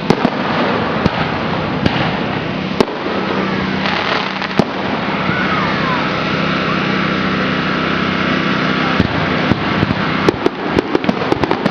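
Aerial fireworks going off: scattered sharp bangs at first, then a fast run of crackling reports near the end, over the steady din of a crowd.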